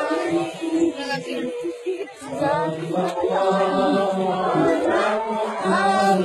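A group of voices chanting a devotional song together, unaccompanied.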